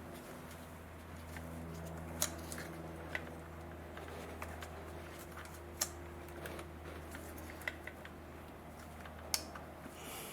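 A few sharp, scattered clicks and taps of a plastic ignition coil pack being handled and lined up over its spark plug well, over a steady low hum.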